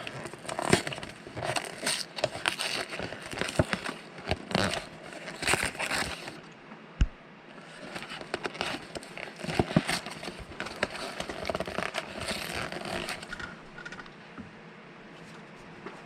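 Paper and cardboard packaging being handled: irregular crinkling, crackling and tearing, busiest in the first two thirds and thinning out near the end.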